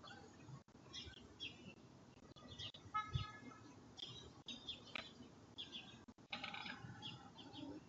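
Faint scattered bird chirps, picked up through a Ring video doorbell's microphone, with a low thump about three seconds in.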